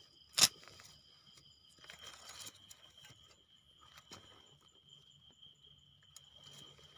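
Crickets or other night insects trilling in one steady high tone, with a fainter pulsing chirp above it. A single sharp knock comes about half a second in, and there are a few soft scrapes and taps of digging in leaf litter and soil.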